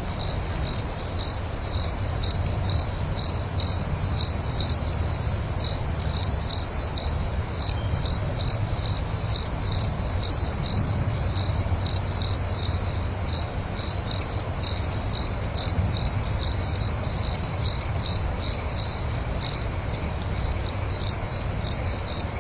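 A cricket chirping: short, high chirps repeating evenly about twice a second, over a steady low rumble.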